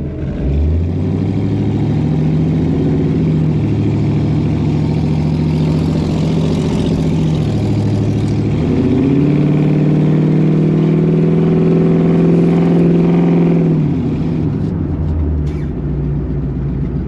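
Car engine revving up and holding at high revs, dropping back about eight seconds in, climbing and holding again, then falling away near the end.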